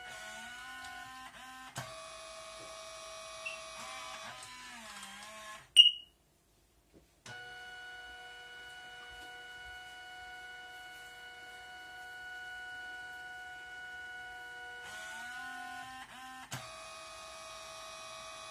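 Victure dye-sublimation photo printer running its print cycle: a steady motor whine of several tones that shift in pitch each time the paper feed changes, with occasional light clicks, as the 4x6 sheet is drawn back and forth for each colour pass. A single brief, very loud high blip comes about six seconds in, followed by a second of silence before the whine resumes.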